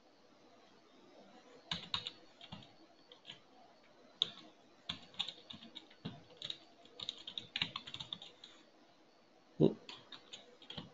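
Computer keyboard typing in irregular runs of quick keystrokes, with a single louder, deeper thump near the end.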